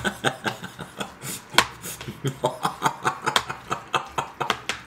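A man laughing in a long run of short, breathy bursts, several a second.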